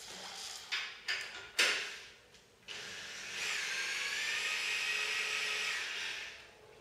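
A few sharp knocks, then a power drill starts up about three seconds in, picks up speed and runs steadily for about three seconds before stopping, driving the motorcycle lift stand to raise the bike.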